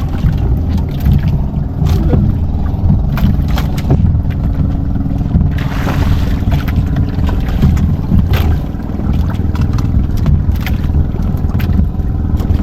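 Small motorboat's engine running steadily, with scattered knocks and a brief rush of noise about six seconds in.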